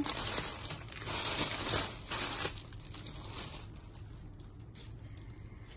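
Plastic carrier bag rustling and crinkling while takeaway food packaging is pulled out and unwrapped, in several quick bursts over the first couple of seconds, then only faint handling.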